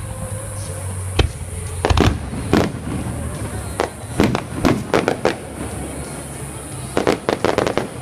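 Aerial fireworks bursting: a string of sharp bangs at irregular intervals, ending with a quick run of several bangs close together near the end.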